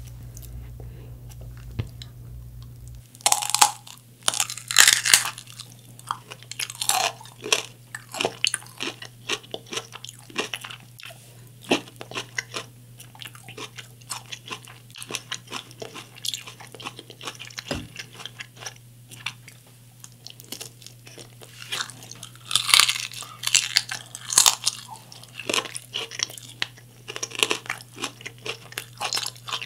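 Biting into and chewing a Brussels sprout with crisp crunching. Loud crunching bites start about three seconds in, give way to steady chewing, and another run of loud crunches comes a little past two-thirds of the way through.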